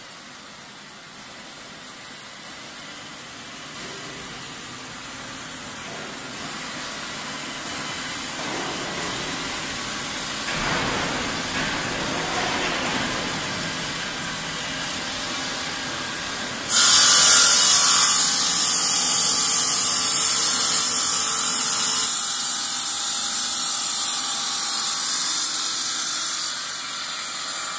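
CKDQ bridge saw running, its noise building gradually, then turning suddenly into a loud high hiss about seventeen seconds in that holds until it eases near the end.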